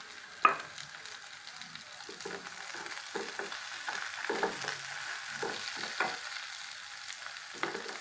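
Diced carrots, capsicum and onion frying and sizzling in oil in a steel pan while being stirred with a wooden spatula in repeated short strokes from about two seconds in. A single sharp knock about half a second in is the loudest sound.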